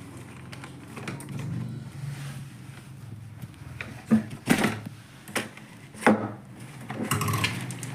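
Several sharp knocks and clatters of hard objects being handled and set down, the loudest two over halfway through, over a steady low hum.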